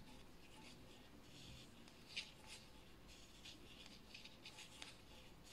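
Faint, irregular clicking and scraping of metal circular knitting needles and yarn as purl stitches are knitted, one tick a little louder about two seconds in.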